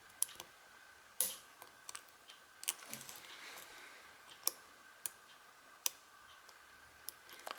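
Small, sharp clicks of a lock pick working the pin stack of a Union padlock under tension-wrench pressure, as pins are probed and set; about eight clicks, irregularly spaced.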